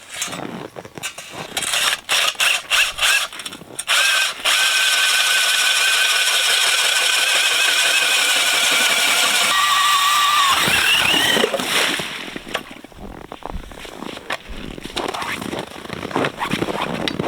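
Power drill spinning an 8-inch Eskimo hand auger with freshly sharpened blades down through thick lake ice: a steady motor whine over the grinding of the cut that runs about ten seconds, climbs in pitch near the end, then stops. Scattered knocks and scrapes come before and after.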